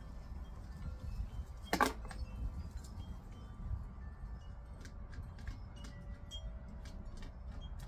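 Wind chimes ringing in the breeze, several notes sounding and fading over a low rumble of wind on the microphone. About two seconds in there is one short, loud clatter, and short clicks follow near the end.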